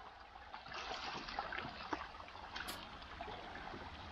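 Stream water running and splashing, with a few small splashes and knocks about a second in.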